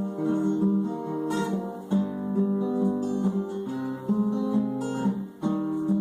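Acoustic guitar strumming the instrumental intro of a slow country song, the chords changing every second or two.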